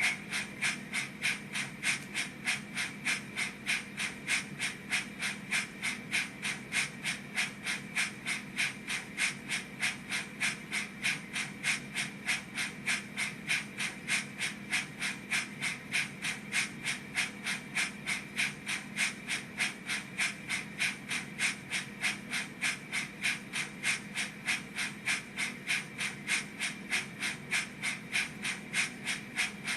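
Steam-locomotive chuff from the sound decoder in a Rapido OO gauge model of the locomotive Lion, played through the model's small speaker. It is an even beat of about three chuffs a second, holding a steady speed.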